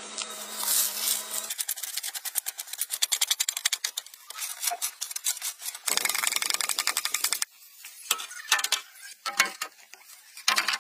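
Short clips of bamboo work cut together, each with its own sound: a run of rapid knocks and scrapes, then machetes chopping into a green bamboo stalk, then a few separate knocks as bamboo poles drop into a dirt pit.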